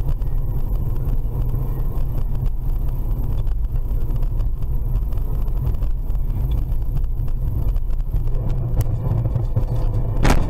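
Dashcam sound of a car on the move: a steady low rumble of engine and road noise heard from inside the cabin. Near the end a single sharp bang, the impact of a van colliding with the car.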